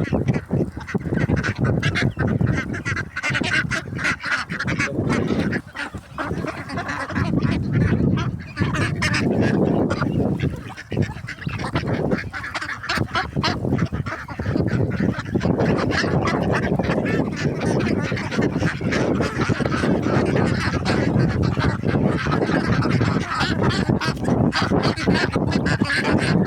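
A flock of ducks calling loudly, with many quacking, honking calls overlapping almost without a break.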